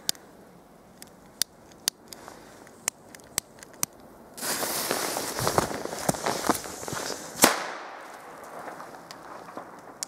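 Weco Pyro Cracker firecrackers: a handful of sharp clicks, then a stretch of scuffling noise through dry leaves, ended about seven and a half seconds in by one loud bang with a fading echo.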